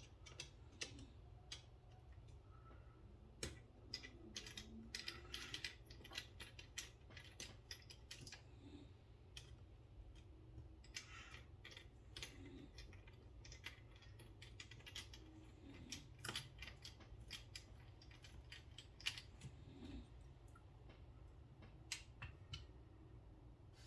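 Faint, irregular small clicks and ticks of a small Torx driver and metal parts while a Benchmade Bugout folding knife is being taken apart, over a low steady hum.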